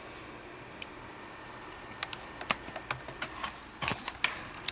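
Irregular sharp clicks and taps, like keys being typed on a computer keyboard, starting about two seconds in over a low hiss.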